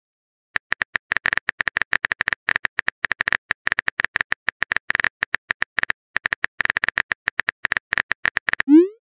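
Rapid, irregular tapping clicks of a phone keyboard sound effect as a text message is typed, with a brief pause about six seconds in. Near the end, a short rising whoosh sounds as the message is sent.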